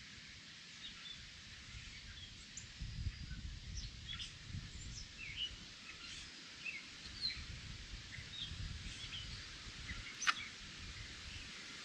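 Birds chirping, many short high calls and quick sweeping whistles over a steady background hiss, with low rumbling handling noise and one sharp click about ten seconds in.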